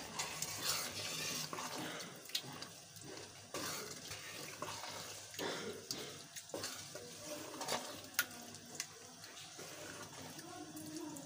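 A wooden spoon stirring thick, wet mashed mustard greens (saag) through oily tempering in a metal pot: irregular wet squelching and sloshing, with occasional light knocks of the spoon against the pot.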